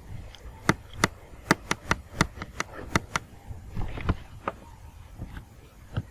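A run of sharp, irregular taps, about a dozen, most of them in the first three seconds and one more near the end.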